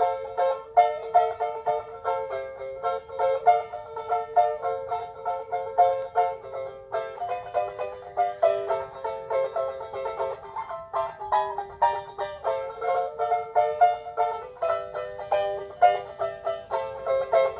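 Background music: a quick, bright tune of rapidly picked plucked strings with little bass.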